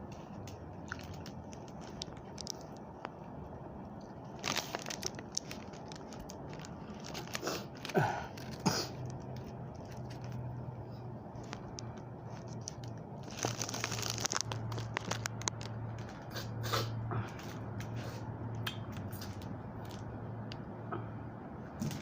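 Someone biting and chewing crisp raw vegetables close to the microphone, with loud crunches now and then between quieter chewing.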